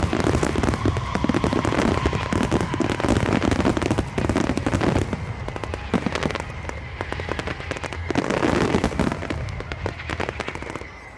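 Fireworks display: a dense, rapid run of bangs and crackling, getting quieter near the end.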